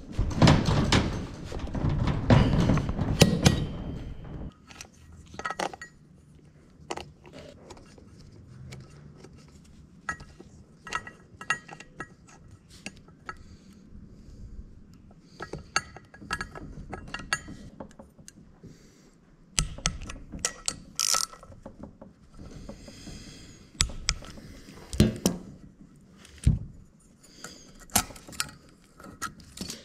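Hand-tool and parts-handling sounds on a Predator 212 engine: a wrench working the nut on the cast aluminium flywheel, busy and loud for the first few seconds, then scattered small clicks and knocks as the ignition coil and its wiring are fitted.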